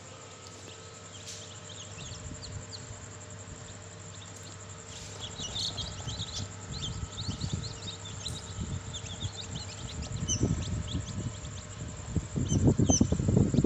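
Many newly hatched chicks peeping: short, high chirps scattered throughout, over a faint steady hum. Rustling and handling noise grows through the second half and is loudest in the last couple of seconds.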